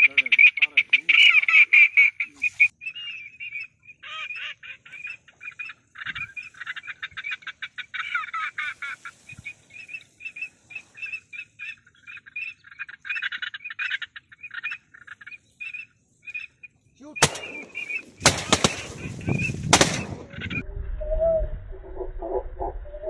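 Rapid, repeated duck calling, then several shotgun shots in quick succession near the end as a flock of ducks passes over the blind.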